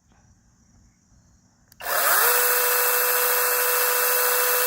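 Battery-powered 6-inch brushless mini chainsaw switched on about two seconds in, its motor spinning up within a fraction of a second to a steady high whine. It runs free without cutting.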